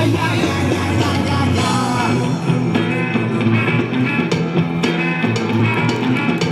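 Loud rock song with singing and guitar.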